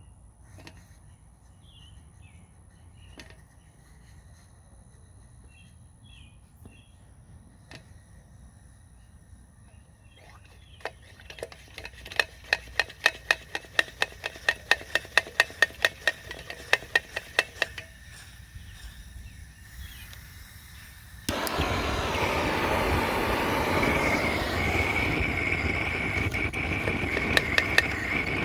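Vintage gasoline blow torch lamp: a run of quick, regular clicks, about three a second for some six seconds, then about three quarters of the way through the burner comes on with a sudden, steady, loud hiss of the pressurised flame that keeps going.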